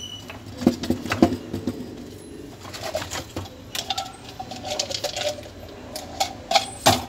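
Sharp plastic clicks and knocks from handling a laptop's optical drive while a needle is pushed into its emergency eject hole to release the tray. The strongest knocks come near the end.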